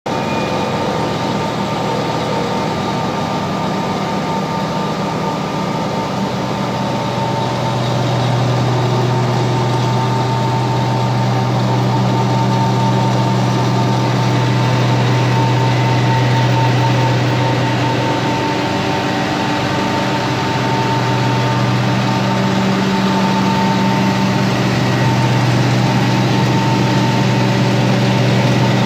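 Micronizing grinding mill and its blower fan running steadily: a loud, even machine hum with a thin whine on top. It gets slightly louder about eight seconds in.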